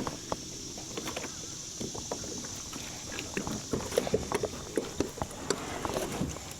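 Kayak hull being dragged and bumped against a log in the water: scattered irregular knocks and light splashing, the sharpest knocks about four seconds in, over a steady high hiss.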